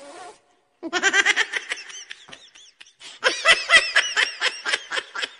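Laughter: quick, high-pitched giggling in two bursts, the second starting about three seconds in.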